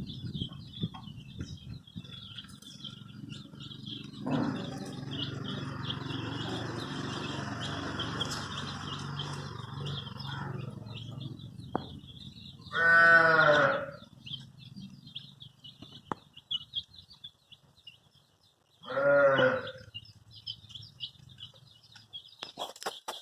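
Baby chicks peeping continuously in high-pitched chirps. A steady low noise runs for about six seconds in the first half, and twice, about halfway through and again some six seconds later, a larger farm animal gives a loud, wavering call lasting about a second.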